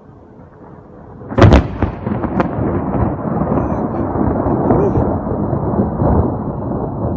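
A sharp, loud thunderclap from a nearby lightning strike about a second and a half in, followed by a long, heavy rumble of thunder.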